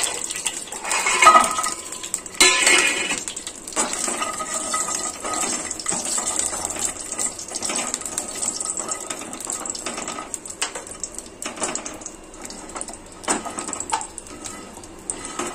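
Bori (dried lentil dumplings) frying in oil in a nonstick kadai and being stirred with a silicone spatula: a steady high sizzle under irregular clatters and scrapes of dumplings and spatula against the pan, the loudest clatters about one and two and a half seconds in as the dumplings go in.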